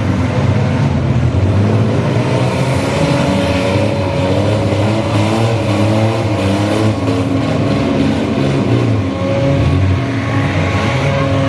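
Several demolition-derby minivan engines revving, their pitch rising and falling as the vans are driven hard, with a few knocks around the middle of the run.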